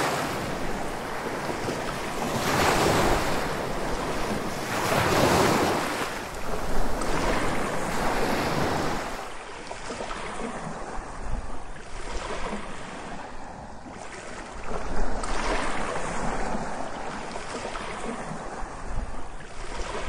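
Sea surf: waves breaking and washing in as a steady rush, swelling louder several times, most strongly about three, five and fifteen seconds in.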